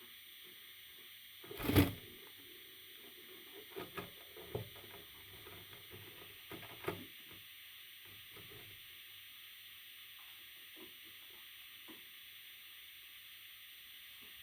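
Steady background hiss with a few brief rustling scrapes and knocks, the loudest about two seconds in and smaller ones a few seconds later.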